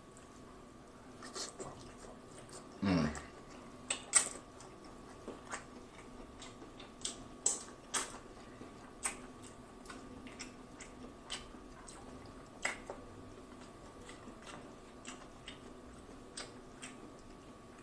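Close-miked eating of seafood boil: irregular sharp, wet clicks and crackles as shrimp shells are peeled and the meat is chewed. A short, low voiced sound falls in pitch about three seconds in.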